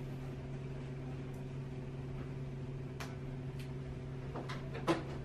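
Steady electrical hum of a small clinic room, with a few light clicks and handling noises in the second half as a gloved hand works with injection supplies. The loudest click comes just before the end.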